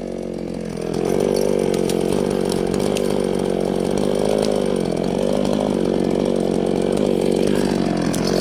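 Chainsaw engine speeding up about a second in and running at high speed under load, its pitch dipping now and then as it cuts through wood.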